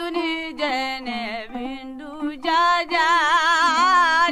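A song with a solo voice singing in short wavering phrases with heavy vibrato, then a long held, wavering line from about three seconds in.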